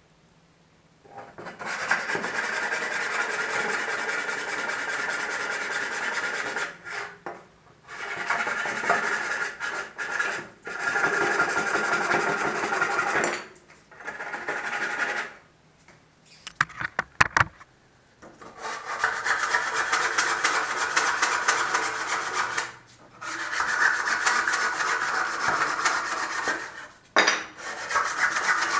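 Handsaw cutting into a wooden 2x14 stair stringer to cut out a step notch. It saws in several runs of quick strokes, each a few seconds long with short pauses between, and gives a few sharp clicks a little past the middle.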